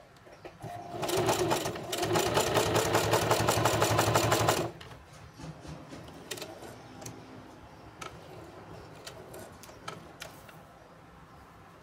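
Singer Heavy Duty sewing machine stitching through a leather strap at speed, a rapid even clatter of stitches for about four seconds that stops suddenly. After that come a few light, scattered clicks as the needle is stepped slowly by hand with the wheel.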